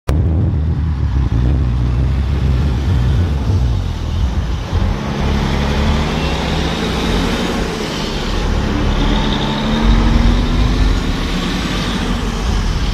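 Heavy truck driving past, its engine running under a steady hiss of tyre and road noise that swells in the middle.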